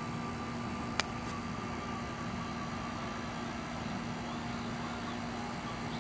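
Steady background hum with a constant low tone, and a single sharp click about a second in.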